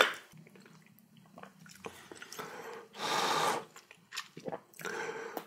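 Close-miked eating sounds of a person chewing rice, sea mustard soup and kimchi, with small wet mouth clicks. A louder rushing, breathy mouth sound comes about three seconds in, and another near the end.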